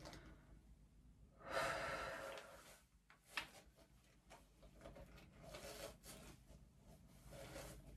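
A long breathy exhale, then a single sharp click, over faint rustling as a comb and brush are drawn through hair.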